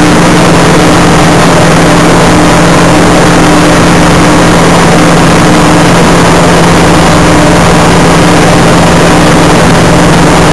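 Single-engine light aircraft's piston engine and propeller running steadily at a constant pitch, heard from inside the cockpit, loud enough to overload the recording.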